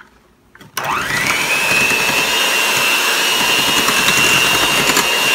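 Electric hand mixer switched on about a second in, its motor whine rising quickly in pitch and then running steadily as the beaters whip eggs and sugar in a bowl.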